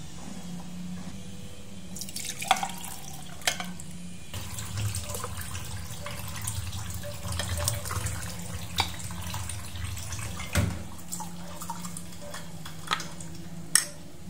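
Liquid poured over ice into a glass, splashing and trickling, with sharp clinks of ice and glass here and there. Near the end a spoon clinks in the glass.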